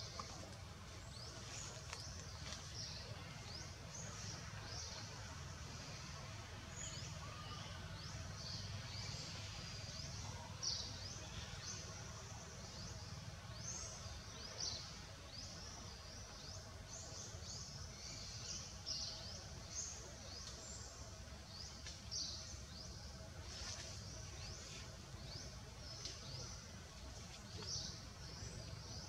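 Outdoor ambience: a steady low rumble with many short, high-pitched chirps, several a second, a few of them a little louder.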